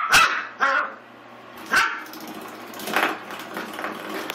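Eight-week-old Pomeranian/Miniature Australian Shepherd puppy barking, about four short, high barks spread over a few seconds.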